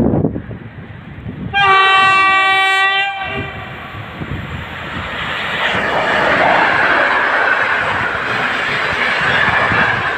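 Electric locomotive with passenger coaches passing at speed. It sounds its horn once, a chord held for about a second and a half near the start, followed by the rising rush of the train going by.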